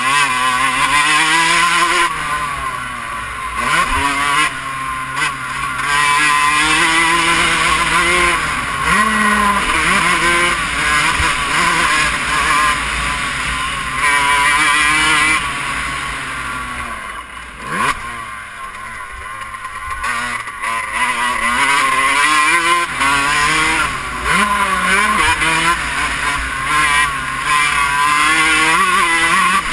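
Dirt bike engine heard from the rider's helmet camera on a motocross lap, its revs climbing and falling over and over as the throttle is opened and closed through the gears, with a few brief drops where the throttle is shut off.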